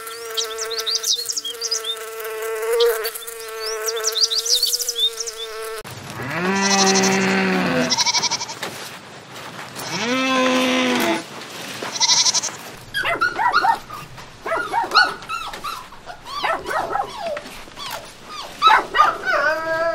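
A bee's steady buzz with faint high chirps over it, then goats bleating in two long calls, then puppies whimpering and yipping in many short high cries.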